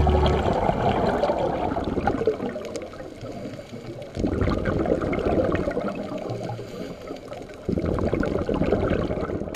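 Muffled underwater noise picked up by a diving camera: a dense, low crackling wash of water sound. It jumps abruptly louder about four seconds in and again near eight seconds.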